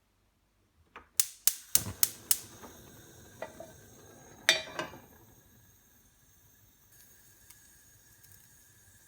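Sharp clicks and knocks from a hard everyday object being handled as a sound effect: a quick run of about five, then a louder clack with two smaller ones a few seconds later, followed by faint hiss.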